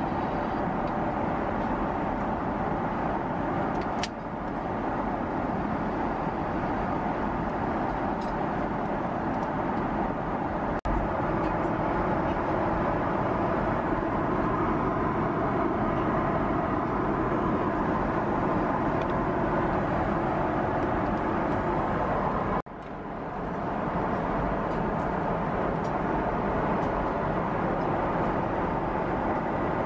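Steady rushing cabin noise of a Boeing 777 airliner. It dips briefly three times and comes straight back.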